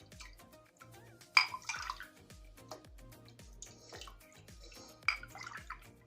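Milk-and-yogurt mixture being poured into small cups: two short bursts of pouring and splashing with a light clink, the first about a second and a half in and the second about five seconds in. Background music with a steady beat plays throughout.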